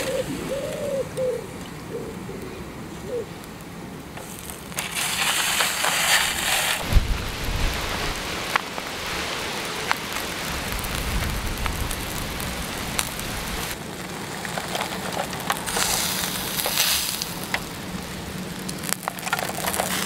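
Lamb steaks sizzling on a disposable foil barbecue over hot charcoal: a steady hiss full of small crackles that starts about five seconds in and swells twice.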